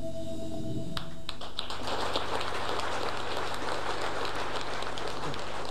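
A lead guitar note rings and fades away. About a second in, audience applause starts: a dense patter of many hands clapping that continues steadily.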